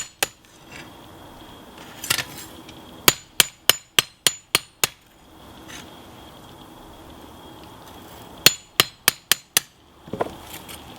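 Hand hammer striking the hot lawnmower-blade steel on an anvil to forge the knife's clip point: quick, ringing blows about four a second, in two main runs of six or seven strikes with pauses between and a few single blows around them.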